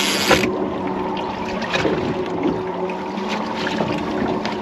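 Water sloshing and trickling against a fishing boat's hull, over a steady low hum; a louder rush of noise cuts off about half a second in.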